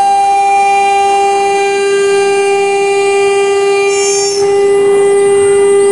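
CNC router spindle running at high speed and engraving a PVC/ABS sheet, giving a steady high-pitched whine over cutting noise. A little past four seconds in the level dips briefly and the upper hiss changes.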